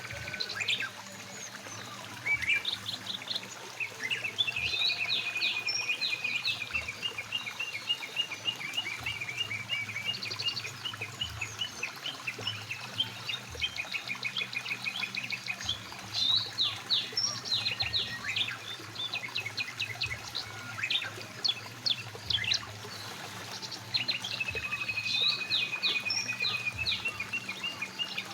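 Several songbirds singing and calling, with rapid trills and chirps, over the steady sound of a flowing mountain river.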